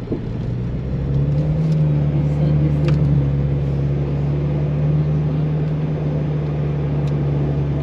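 A 4x4 vehicle's engine running steadily. Its pitch rises a little about a second in, then holds level.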